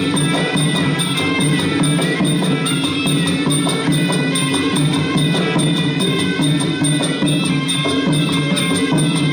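Traditional Kun Khmer fight music: drums and hand percussion keeping a steady, fast beat, played over the bout.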